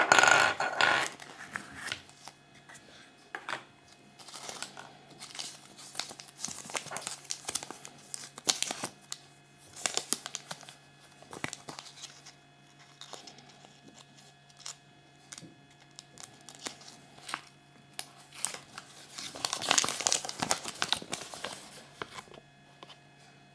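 Kinder Surprise egg's thin foil wrapper crinkling and tearing as it is unwrapped, loudest at the start and again near the end. In between come scattered sharp clicks and taps.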